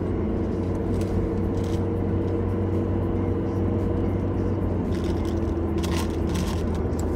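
Steady car-cabin hum from the engine and road while driving, with a few soft rustles near the end.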